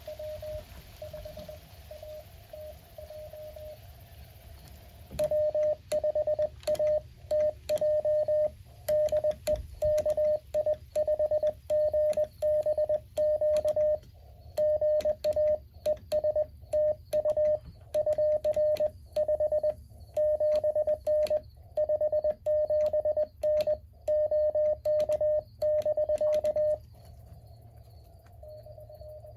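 Morse code from a Mountain Topper MTR-4B QRP transceiver: a faint keyed tone over band hiss, then about five seconds in a much louder keyed tone at one steady pitch, with a sharp click at each element and the hiss cut out, sent for about twenty seconds as the operator transmits. Near the end the hiss and a faint keyed signal return.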